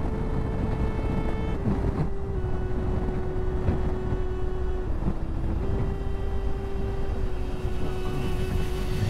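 Honda Africa Twin motorcycle ridden slowly, its engine running steadily under a low rumble of road and wind noise. A steady whine shifts pitch slightly a few times as the speed changes.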